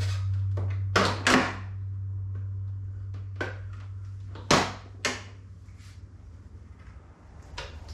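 Plastic fairing panel of a Kawasaki KLR650 being wiggled out of its rubber grommets and lifted off. There are sharp plastic knocks and clunks, two close together about a second in and two more about four and a half to five seconds in, over a steady low hum.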